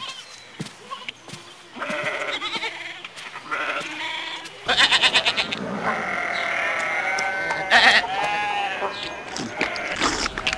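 Sheep bleating: a series of wavering calls, the loudest about five seconds in.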